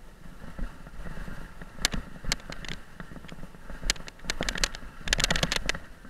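Mountain bike running fast down a bumpy dirt trail: tyres rolling over dirt with scattered sharp rattles and clatters from the bike over bumps, the densest clatter about five seconds in. Low wind rumble on the helmet camera's microphone.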